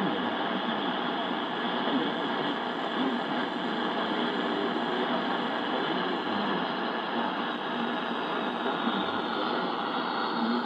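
Yaesu FRG-7 shortwave receiver playing a weak, distant AM broadcast through its loudspeaker: a steady hiss and static with the station's audio buried low in the noise.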